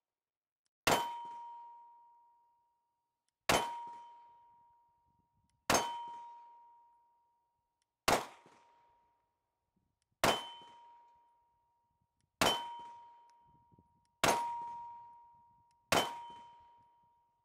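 Glock pistol fired at hanging steel targets: eight sharp shots about two seconds apart, each followed by the ring of the struck steel plate fading out over a second or two.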